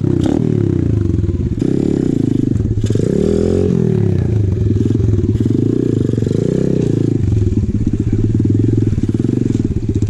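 Apollo RFZ 125cc pit bike's single-cylinder four-stroke engine running just after starting, revved up and back down about three seconds in.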